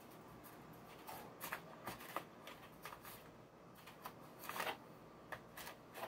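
Faint rustling of a cloth towel being rubbed and bunched against the water heater's lower element opening, in a series of short scuffs. The longest comes about four and a half seconds in.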